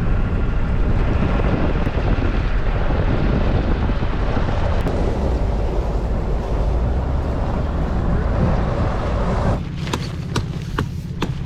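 Moving vehicle: engine rumble with wind buffeting the microphone. About ten seconds in, it drops to a quieter, steady low hum with a few sharp clicks.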